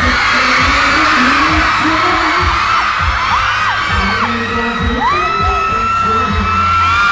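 Loud pop song with a singing voice over a steady bass line, with high screams and whoops from the audience rising over it.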